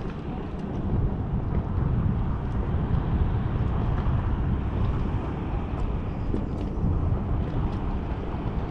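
Steady wind rumble on the microphone with choppy water slapping around an inflatable boat.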